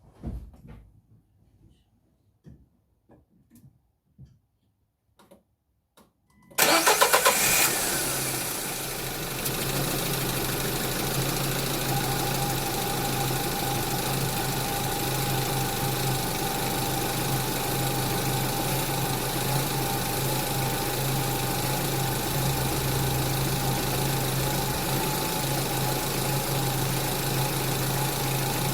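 A few faint clicks and knocks, then, about six and a half seconds in, a Renault Duster's 1.6 petrol engine catches with a short loud flare of revs and settles into a steady idle. It is running on freshly fitted spark plugs and starts better than on its old, rusty plugs.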